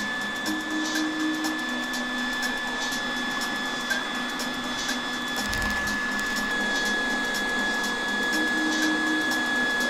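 Electric Lilo air-bed pump running steadily, blowing air into a charcoal fire with a constant whine and rush of air. Faint crackling from the burning charcoal ticks over it.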